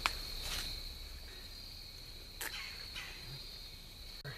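Crickets chirring in a steady high drone, with a few faint snaps, about four in all.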